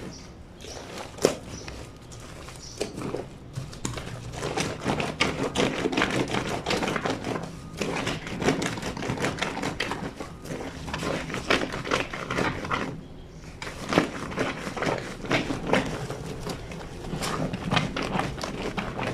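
A wet blanket being scrubbed and worked by hand on a granite washboard sink: a quick, uneven run of rubbing and slapping strokes, with a short lull about thirteen seconds in.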